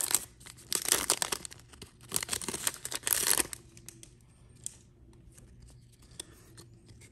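Foil wrapper of a Panini Prizm football card pack being torn open and crinkled. The crackling comes in loud bunches and stops about three and a half seconds in, leaving only faint rustles and clicks as the cards are handled.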